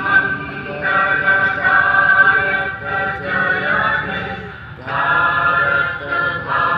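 Slow vocal music: voices singing long held notes, each about a second, with brief breaks and a short pause about four and a half seconds in.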